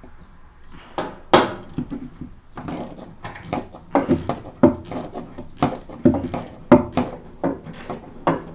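Stainless steel worm-drive hose clamp being tightened with a hand tool on a boat's pipe: a run of irregular clicks and knocks, starting about a second in.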